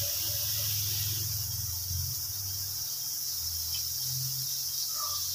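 Margarine melting and sizzling in a hot non-stick wok: a steady high hiss, with a low steady hum underneath.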